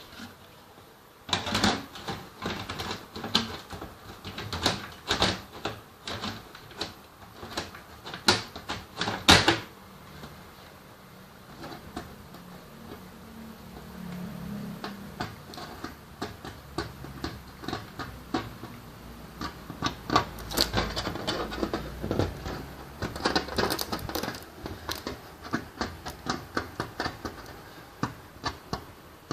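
Irregular clicks, knocks and rattles of computer parts being handled and fitted together during a PC build, thickest in the first third and the last third.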